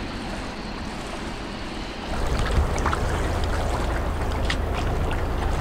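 Water rushing along the hulls of a catamaran under way, a steady wash of noise. About two seconds in a deeper low rumble swells in and holds, with a few light ticks on top.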